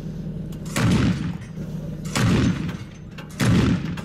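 Truck-mounted heavy machine gun firing three short bursts, about a second and a half apart, over a steady low hum.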